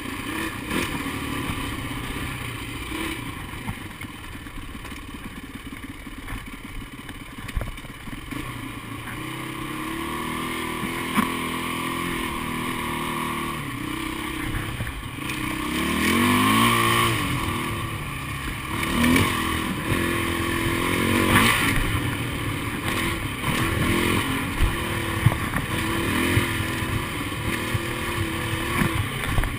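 Dirt bike engine under way on a dirt trail, quieter for the first several seconds, then revving up and down from about ten seconds in, with its pitch rising and falling through the throttle changes. Short sharp knocks from the bike going over rough ground.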